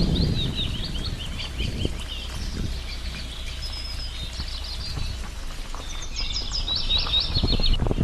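Small songbirds chirping and twittering in quick trills, busiest at the start and again near the end, over a low outdoor rumble.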